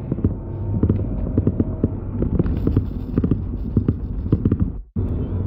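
Steady low drone of a car cabin picked up by a phone's microphone, under many irregular clicks and knocks. The sound cuts out for an instant near the end.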